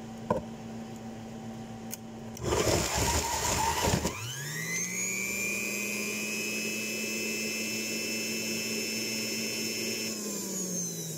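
Electric juicer motor making oranges into juice. About two and a half seconds in there is a loud rough grinding burst. Then the motor whine rises and holds a steady pitch for about six seconds, and near the end it falls in pitch as the motor winds down.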